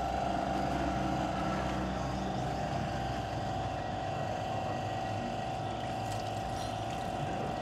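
A steady machine drone with a constant mid-pitched whine and a low rumble underneath.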